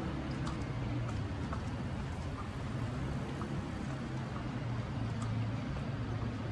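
City street traffic: a steady low rumble of cars on the road.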